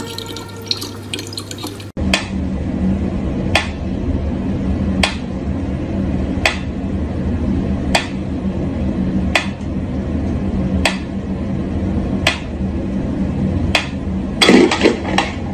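Tap water running for the first two seconds, then a mechanical pyramid metronome ticking slowly and evenly, about one tick every second and a half, with a brief louder noise near the end.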